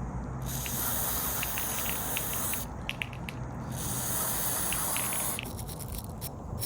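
Aerosol can of mass airflow sensor cleaner spraying in two hissing bursts of about two seconds each onto the tips of removed charger inlet pressure sensors, followed by a few light clicks.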